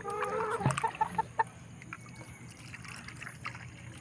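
A gamecock clucking in short, quick notes during the first second and a half, with water trickling from a plastic bottle into its drinking cup. The trickle carries on faintly after the clucking stops.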